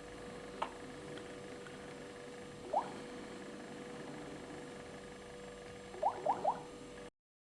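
Quiet Samsung Galaxy tablet ringtone from the tablet's speaker: short rising plinks, one, then another about two seconds later, then three in quick succession, over a steady faint hum. The sound cuts off abruptly near the end.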